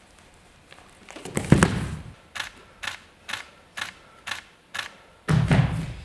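A heavy thump, then six sharp, evenly spaced clicks about two a second, then another heavy thump near the end.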